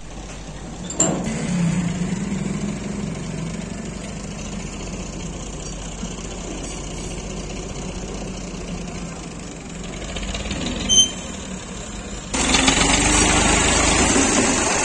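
Farm tractor's diesel engine running steadily as it moves a hitched trolley, getting louder and closer about twelve seconds in. A brief sharp sound stands out about eleven seconds in.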